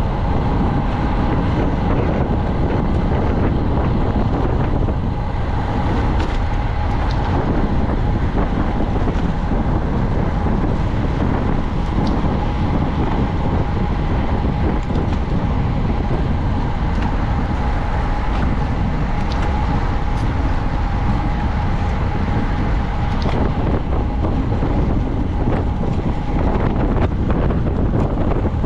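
Loud, steady wind noise buffeting the microphone of a camera on a moving racing bicycle, with a constant high hum running through it.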